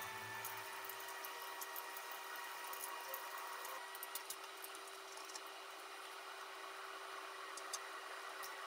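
Hot oil sizzling steadily in a frying pan as a breaded chicken tender fries, with scattered light crackles and pops, over a faint steady hum.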